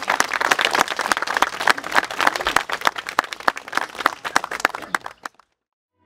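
Crowd of wedding guests applauding: many people clapping at once. The applause cuts off suddenly about five seconds in, leaving a brief silence.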